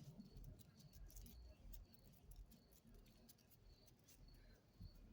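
Near silence: faint, irregular small ticks and patter over a low rumble.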